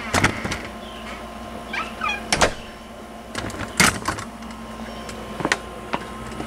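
Footsteps and handling knocks while walking out onto a porch and down its steps: four or five sharp knocks spaced a second or more apart, with a few short squeaks about two seconds in.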